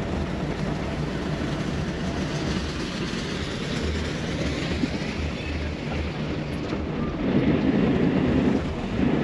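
Sailing yacht's inboard diesel engine running steadily as the boat motors off, a low even throb with water and wind rush over it. A louder rushing noise comes in about seven seconds in.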